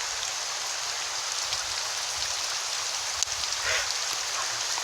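Hailstones falling and striking the ground and surfaces: a steady, dense hiss with scattered sharp clicks of individual stones hitting.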